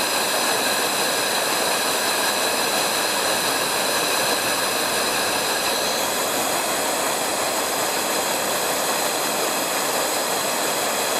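Two Coleman Gold Bond 200A pressure lanterns burning with a steady, even hiss, their founts pumped up. The flames are running smoothly, not pulsing.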